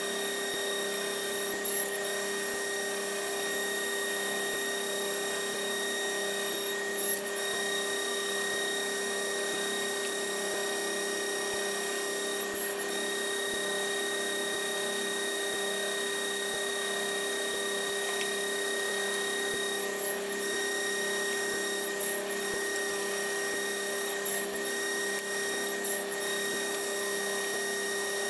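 Table saw running steadily with a constant whine and no change under load, with a few light knocks of wooden stock being handled on its crosscut sled.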